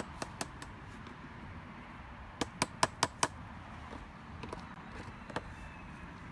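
Hand shovel digging, with its blade striking hard ground: a quick run of five sharp strikes in the middle and a few lighter knocks around them.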